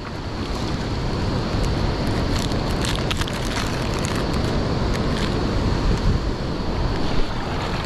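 Wind buffeting the microphone over river current moving around a kayak, with a few light clicks and rustles as tackle is handled.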